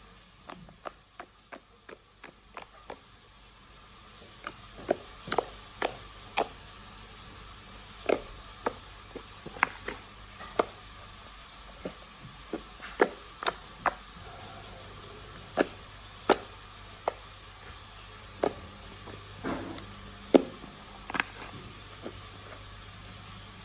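Fluffy slime being squeezed and pressed, giving a long irregular series of sharp pops and clicks, quick and soft at first and then louder and about one a second, over a steady hiss.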